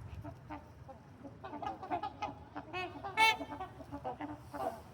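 A flock of trumpeter swans calling: many short, overlapping trumpeting honks from several birds, with one loud call about three seconds in.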